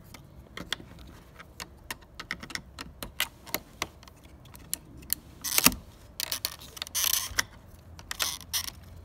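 A flathead screwdriver prying at the plastic clips of a fuel sending unit on a fuel pump assembly: a run of small irregular clicks and ticks, with a sharper click about five and a half seconds in.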